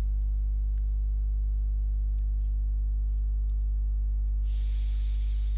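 Steady low electrical hum from the recording setup, with a few faint computer-mouse clicks and a short soft hiss near the end.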